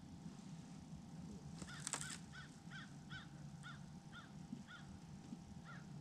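A bird calling outdoors in a run of short, arching calls, two or three a second, starting about two seconds in and spacing out toward the end, over a faint steady low hum. A brief sharp click comes just before the first call.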